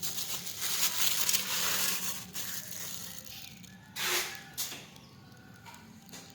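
Packaging rustling and crinkling as a product is handled during unboxing, in irregular noisy bursts that are dense in the first two seconds, with another strong one about four seconds in.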